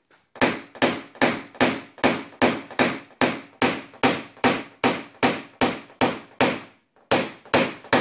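A hammer tapping a PDR knockdown punch held against a car door's sheet metal, evenly paced at about two and a half taps a second with a short pause near the end: knocking down the high spots and ridges left around a repaired dent.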